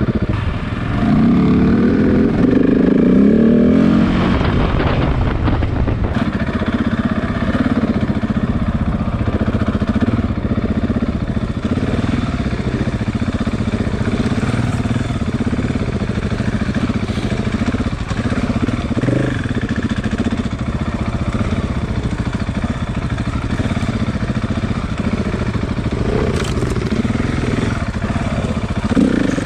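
KTM 690's single-cylinder engine under way on the trail, revving up about a second in and then running at fairly even revs.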